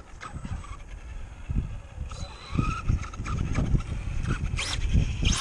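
Brushless electric motor of a 2WD Traxxas Stampede RC truck whining up and down in pitch as it is throttled. Two short sharp tyre skids on concrete come near the end.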